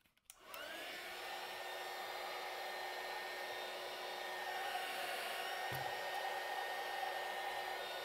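Handheld heat gun switched on about half a second in, its fan spinning up with a short rising whine and then blowing steadily, shrinking heat-shrink tubing over a crimped cable end.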